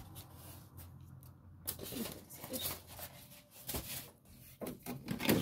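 Plastic parts and packaging being handled on a tabletop: scattered light rustles and knocks, busier near the end.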